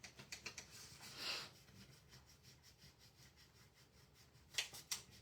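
Faint rubbing and scratching of a hand or tool on a wooden cutting board surface, in short uneven strokes, with two sharp taps near the end.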